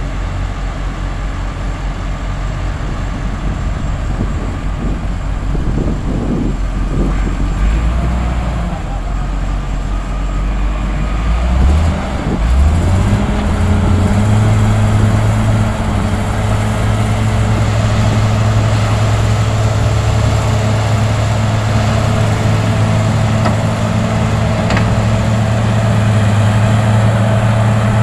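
Heavy diesel engines of a wheel loader and a bulldozer running under load as they tow a stuck vacuum truck through sand. About twelve seconds in, an engine revs up and then holds a steady, higher drone.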